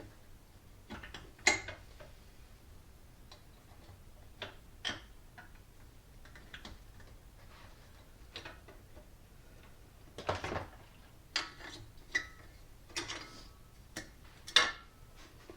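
Scattered light clicks, knocks and clinks of tools and metal parts being handled, about a dozen at irregular spacing, the sharpest about a second and a half in and near the end.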